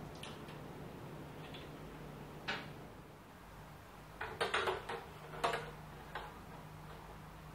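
Scattered light clicks and knocks from small hard parts being handled and fitted together, with a quick cluster of taps about four and a half seconds in, over a steady low hum.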